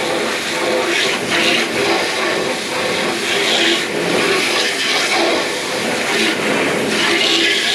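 Water running steadily as a livestock water trough is filled, a continuous rushing sound.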